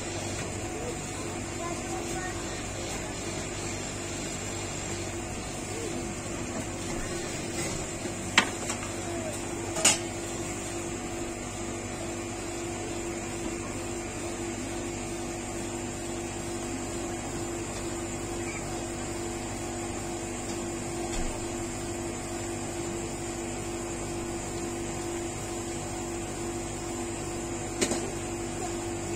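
Steady hum of a rolled-ice-cream cold-plate machine's refrigeration unit. Metal spatulas click sharply on the plate or cup twice about a third of the way in and once near the end.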